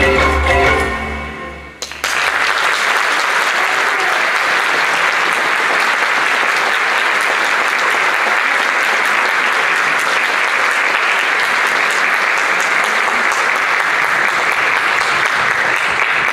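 Music fades out over the first two seconds, then an audience applauds steadily, starting suddenly about two seconds in.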